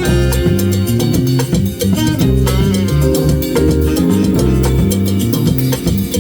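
A live band playing upbeat Latin-style music, with a moving bass line and drum kit keeping a steady beat.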